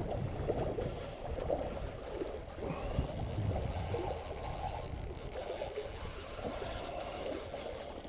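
Creek water rushing and gurgling, a steady uneven noise with no clear rhythm.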